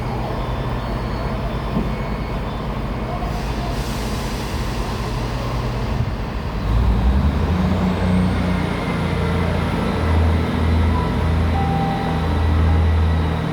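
Diesel train engine running at the platform. About seven seconds in, its low note grows louder and throbs as the engine is throttled up, and a thin high whine climbs and then holds steady.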